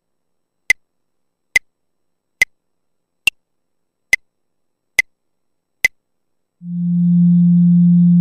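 A metronome-style click ticks seven times at about 70 beats a minute, the fourth click higher-pitched like an accented downbeat. About six and a half seconds in, a cello drone on F fades in over half a second and then holds one steady, unchanging note.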